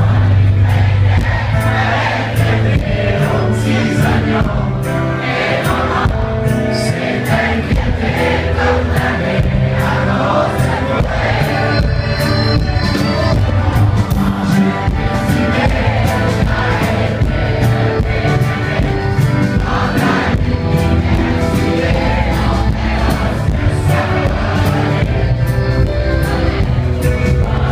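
Live band playing a song: a male singer over electric guitar and drums, with a steady beat and a heavy bass line, loud and close to the stage.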